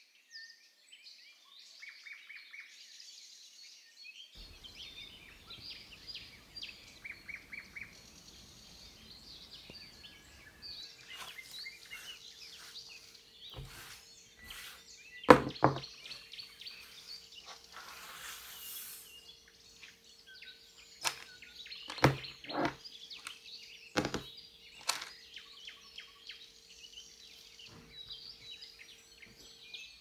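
Small birds chirping throughout, with several sharp knocks and taps of things set down on a hard surface. The loudest knock comes about halfway through, and a cluster follows in the last third. A faint steady hum starts about a third of the way in.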